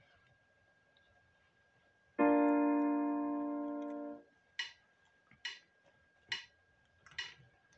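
A keyboard note is held for about two seconds, fading slowly, and then cut off. Four sharp ticks follow, evenly spaced a little under a second apart, like a count-in before a song.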